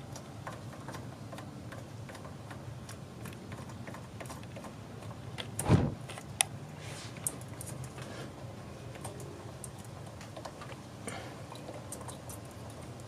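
Scattered small clicks and ticks of tools and parts being handled during a blow-off valve install in an engine bay, over a steady low hum. About halfway through there is one louder knock, followed by two sharp clicks.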